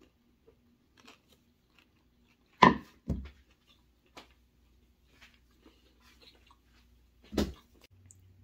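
A person eating seafood: faint chewing and small mouth clicks, broken by sudden thumps about two and a half seconds in, again half a second later, and once more near the end.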